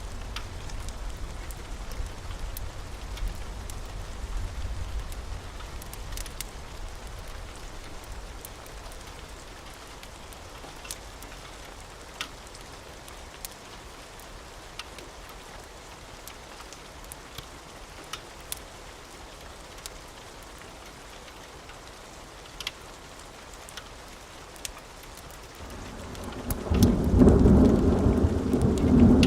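Steady rain with scattered sharp crackles of a wood fire. A low thunder rumble dies away over the first few seconds, and near the end a loud rumble of thunder builds and rolls on.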